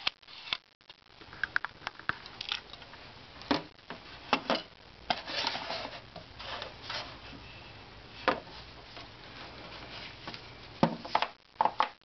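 A vintage View-Master stereo viewer being handled: irregular sharp clicks and short scrapes, with a longer stretch of rubbing about five seconds in.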